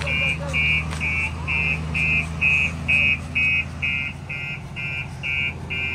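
Truck reversing alarm beeping about twice a second while the truck backs up, over the steady low running of its diesel engine. A second, lower tone joins the beeps about four seconds in.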